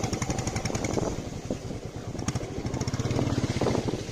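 Royal Enfield Meteor 350's single-cylinder engine running at low road speed with an even beat of firing pulses, pulling a little harder about three seconds in.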